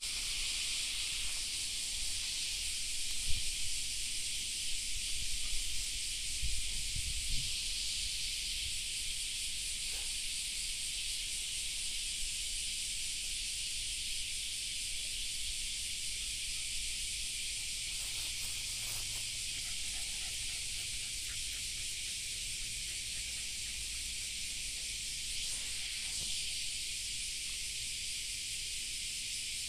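Steady, high-pitched hissing drone of a cicada chorus that does not let up. A few low bumps on the microphone come in the first several seconds.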